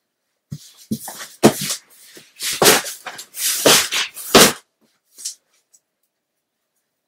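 A cardboard shipping box being lifted and handled, with a run of loud scraping and rubbing noises and a few bumps for about four seconds, then one short scrape.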